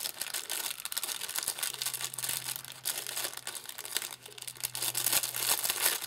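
Clear plastic packaging crinkling and crackling as hands handle and unwrap a small packet close to the microphone. A low steady hum comes in about two seconds in.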